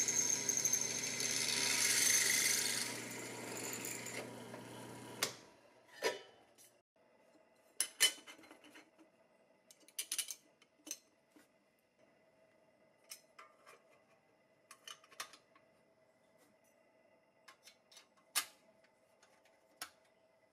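A bench drill press running and boring through a bent sheet-metal bracket, with a steady motor hum and a high squeal from the bit, stopping suddenly about five seconds in. Then small sheet-metal parts are handled and fitted onto a toy truck's steel chassis by hand: scattered sharp metal clicks and brief scrapes.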